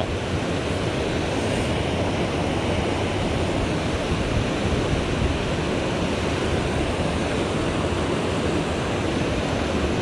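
Steady rushing of a mountain stream's flowing water, an even unbroken wash of sound.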